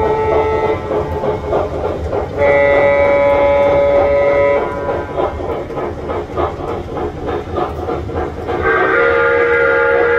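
Onboard sound system of a Lionel Southern Pacific AC-12 4-8-8-2 Cab Forward O-gauge model steam locomotive. It plays steady chuffing at about four beats a second and a chime steam whistle. The whistle sounds three times: a blast ending just after the start, a held blast of about two seconds beginning some two and a half seconds in, and another starting near the end.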